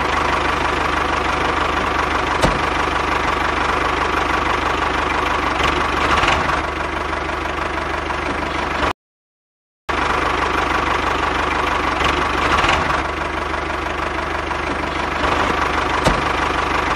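Tractor engine sound running steadily at idle, laid over footage of toy tractors. It cuts out completely for about a second midway, then carries on unchanged.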